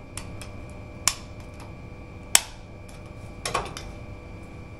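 A few sharp clicks and knocks of hand tools being handled on a wooden worktop while filler is dug out of screw heads. The loudest knock is about halfway through, and a short cluster of knocks follows a second later.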